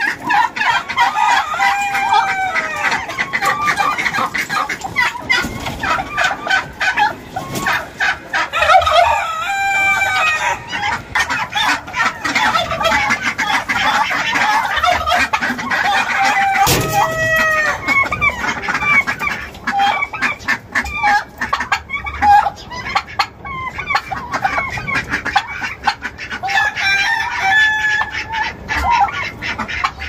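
Flock of chickens clucking continuously, many birds calling over one another, with a rooster crowing now and then.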